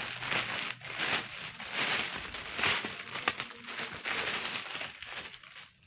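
Plastic packaging crinkling and rustling in irregular surges as a parcel is unwrapped by hand.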